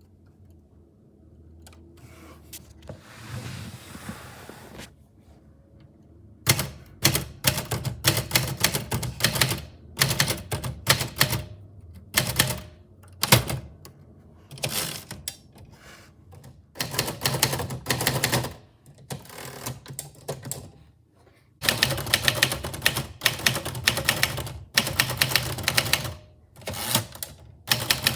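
Typewriter keys clacking in quick runs broken by short pauses, starting about six seconds in after a soft brushing noise.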